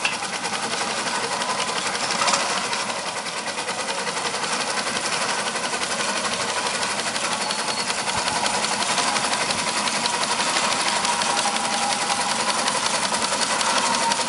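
Third-scale Case steam traction engine running under way with a quick, even exhaust beat, growing a little louder in the second half. Its fast-reacting governor can be heard lifting and carrying the load as the engine drives.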